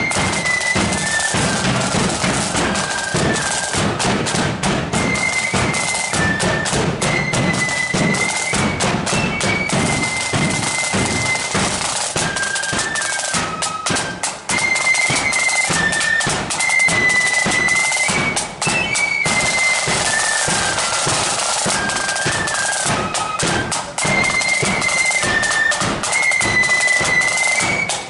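Marching flute band playing a tune: flutes in unison carry a high melody over dense rope-tensioned side drumming and a steady bass drum beat.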